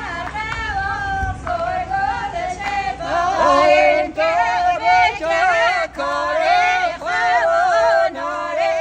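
A woman singing solo and unaccompanied in a high voice, in phrases of long, wavering, ornamented held notes with short breaks between them.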